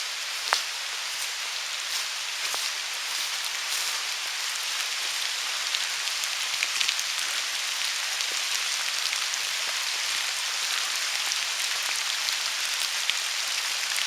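Steady rain falling, an even hiss with scattered sharper drop hits, one standing out about half a second in.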